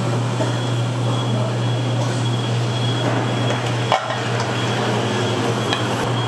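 Steady hum and hiss of a street-food stall's cooking equipment beside a boiling broth pot, with one sharp metal clink about four seconds in as a steel ladle meets the pot, and a lighter clink near the end.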